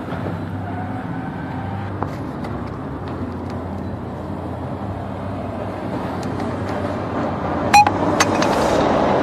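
A vehicle engine runs steadily under scattered small clicks and rustles of cardboard and luggage being handled. About eight seconds in come two sharp knocks, followed by a rush of scraping, rustling noise.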